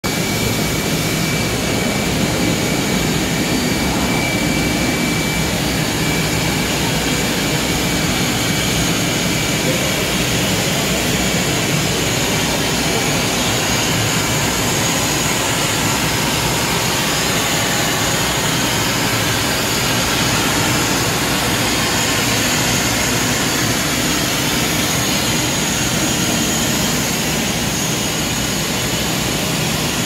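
Plastic sheet extrusion line running: a loud, steady mechanical roar of motors and fans, with a thin high whine in the first few seconds.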